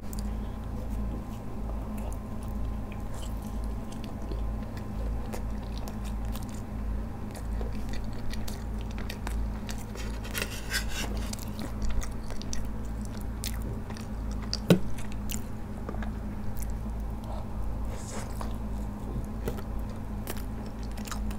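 Close-miked chewing of a slice of pizza topped with creamy penne pasta, with irregular biting clicks and occasional crunches, over a steady low hum.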